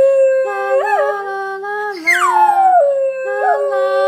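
Schnauzer howling ('singing'): a long howl settles on a held note and trails off, then about two seconds in a new howl starts high, slides down and settles into another held note.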